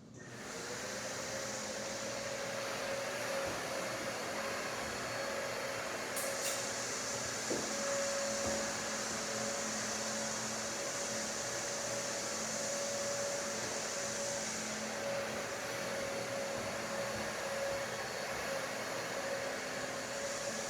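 Hampton Bay Mainstays ceiling fan running steadily after coming on at the start, with a motor hum over a constant rush of air.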